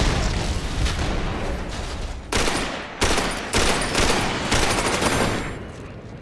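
Battle sound effects: an explosion and rapid automatic gunfire, with sudden loud blasts about every half second from about two seconds in, fading out near the end.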